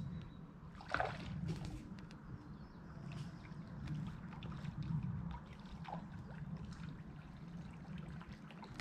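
Faint river water trickling and lapping, with two brief knocks, one about a second in and one about six seconds in.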